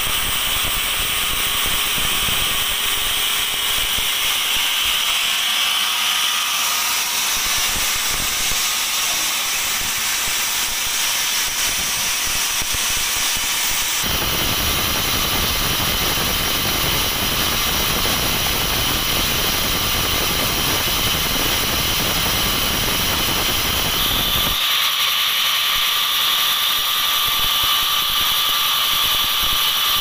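ATLAS band sawmill running, its motor and spinning blade giving a steady loud hiss with a high whine. About 14 seconds in, a lower rumble joins for some ten seconds, then drops out.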